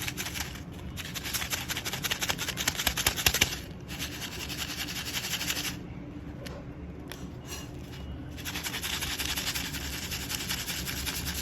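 Magic pops crackling: a dense run of tiny pops in three stretches, with quieter gaps at about four seconds and between about six and eight seconds.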